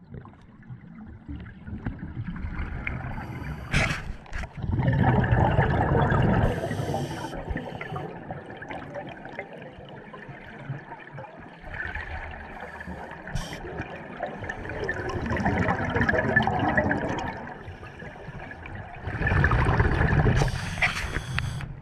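Scuba divers' exhaled bubbles from their regulators, gurgling and rushing underwater in repeated surges. The biggest surges come about five seconds in and again near the end, with quieter stretches between.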